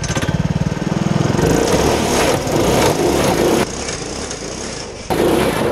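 Small gas go-kart engine in a Power Wheels Mustang ride-on toy car running hard under throttle, its pulses speeding up over the first second. From about a second and a half in it is half buried under a loud rushing noise, which drops back for a while and returns near the end.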